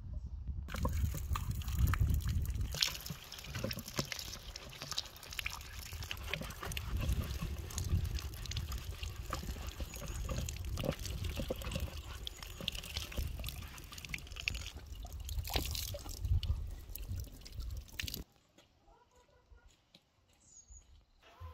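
Water running from an outdoor tap, splashing and trickling onto a pumpkin in a concrete basin as it is washed. It starts just under a second in and cuts off suddenly near the end.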